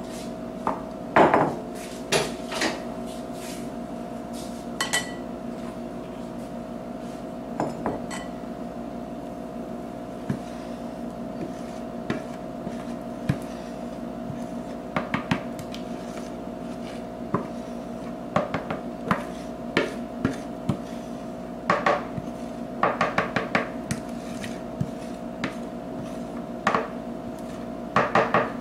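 Wooden spoon knocking and scraping against a sieve and the bowls as melted marshmallow mixture is strained and pushed through the mesh. The clicks and knocks are irregular, with quick clusters about a second in, past the twenty-second mark and near the end, over a steady hum.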